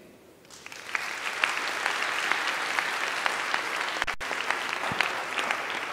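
Audience applause: many hands clapping, starting about half a second in and holding steady.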